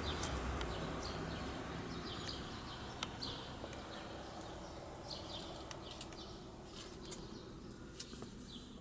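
Outdoor ambience. A low background rumble fades away over the first few seconds while small birds chirp now and then, with a few light clicks.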